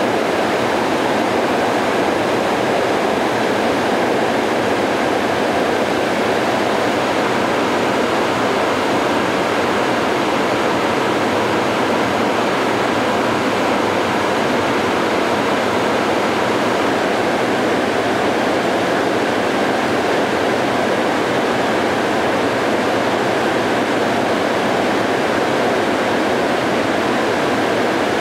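Muddy floodwater rushing downstream and pouring over a dam into churning water below, a steady rush of water with no breaks.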